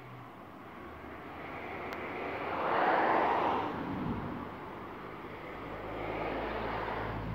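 Engine noise passing by. It swells to a peak about three seconds in and drops in pitch as it moves away, then a second, lower swell comes near the end.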